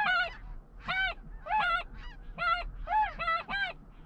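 Snow geese calling: a steady run of short, high honks, about two to three a second.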